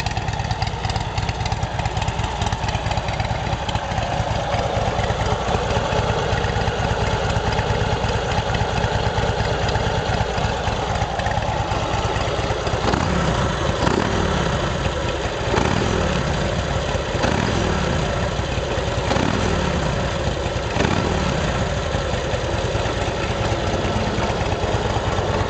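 A 2007 Big Dog Mastiff chopper's 117 cubic inch S&S V-twin running through a Supertrapp exhaust. It idles steadily at first, then from about halfway through it is revved in a series of quick throttle blips, the revs falling back after each one.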